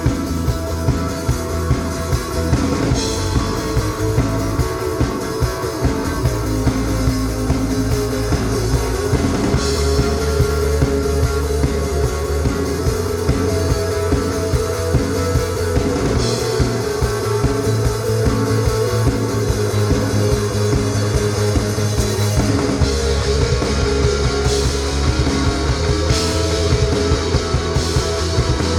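Rock band playing live: guitar and drum kit in a steady, driving beat.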